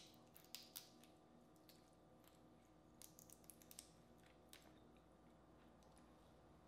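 Faint crackles and clicks of a boiled crawfish shell being cracked and peeled apart by hand: a few in the first second, a quick cluster about three seconds in, then one more.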